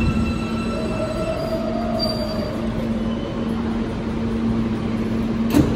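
New York City subway R160B car with Alstom propulsion running between stations: steady rail rumble with a constant hum, a brief wheel squeal that rises and falls about a second in, and a single sharp clack near the end.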